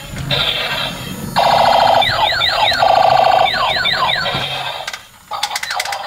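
Electronic sound effects from a battery-powered light-up robot toy car's small speaker as it drives: a tinny buzzing pattern that turns loud about a second and a half in, with repeated quick falling siren-like sweeps. A rapid run of clicks follows near the end.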